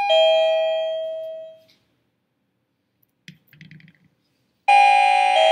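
Wireless doorbell chime receivers (SadoTech Starpoint) sounding a two-note ding-dong, a high note stepping down to a lower one and fading over about a second and a half. The chime is set off by a newly paired motion sensor detecting a hand. It rings once at the start and again near the end, with a faint rustle between.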